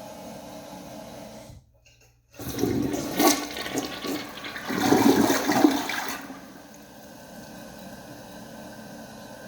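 Toilet flushing: a loud rush of water lasting about four seconds, starting a couple of seconds in and swelling twice before it falls away. A steady low hiss of water runs before and after it.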